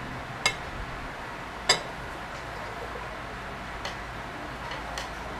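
A metal fork clinking against a ceramic plate: two sharp clicks about a second apart, then two fainter ticks near the end, over a steady low hiss.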